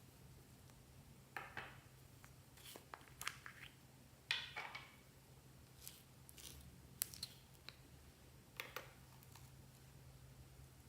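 Slime being worked by hand, with a string of short, soft squishing and crackling sounds a second or more apart, the loudest about four seconds in.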